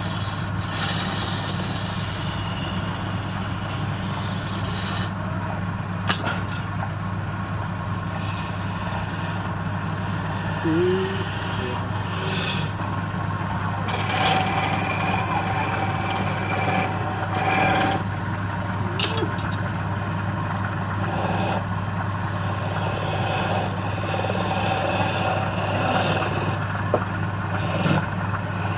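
Wood lathe running with a steady motor hum, while a turning tool cuts the spinning wood with a scraping hiss that swells and eases in spells, broken by a few short clicks.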